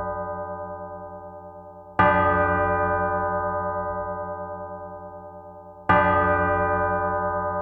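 Church bell heard close up, struck twice about four seconds apart. Each stroke rings on with many overtones over a low, wavering hum, dying away slowly until the next.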